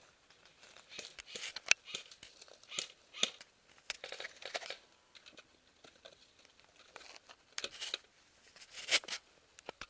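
Rustling and crackling of movement close to the microphone, coming in irregular bursts, with a few sharp clicks.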